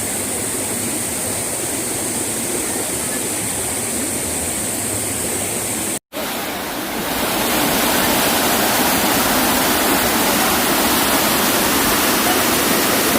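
A mountain stream's water rushing steadily over rocks. About six seconds in the sound cuts out for an instant and comes back louder and brighter, as from a different spot along the stream.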